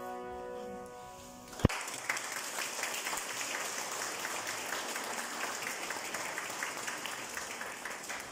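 The last chord of a citera (Hungarian zither) ensemble rings out and fades, then a single sharp knock about a second and a half in, followed by audience applause.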